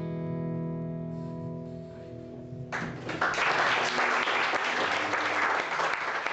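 The song's final chord rings out and slowly fades, then a bit under three seconds in an audience breaks into applause that carries on.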